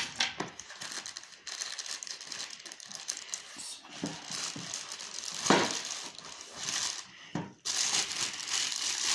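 Plastic wrapping around a rifle scope crinkling and rustling as the scope is handled and lifted out of its box, with a few sharper crackles, the loudest about five and a half seconds in.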